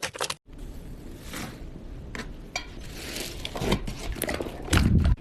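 Slime being worked by hand: quick small pops and clicks, a brief break, then continuous wet squishing with louder squelches near the end.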